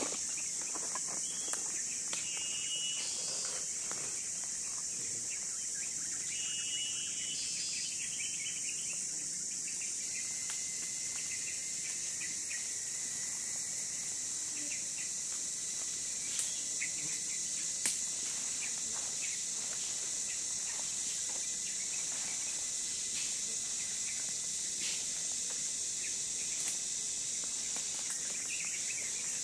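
Steady, high-pitched drone of forest insects, with short bird chirps twice in the first eight seconds.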